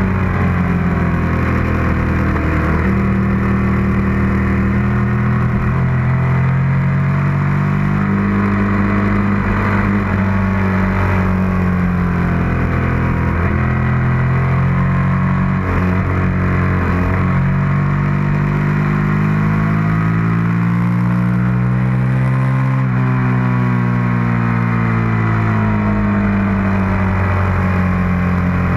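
Suzuki SV650's V-twin engine worked hard around a racetrack, its pitch rising and falling again and again as the rider accelerates, shifts and rolls off for corners, over a steady rush of wind.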